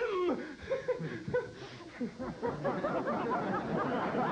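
Audience laughter from many people at once, swelling about two seconds in, after a single spoken word at the start.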